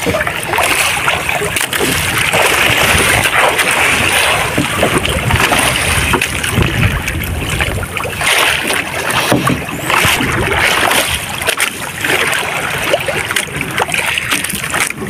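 Choppy sea waves splashing and slapping against the hull of a small wooden outrigger boat, with wind rushing over the microphone.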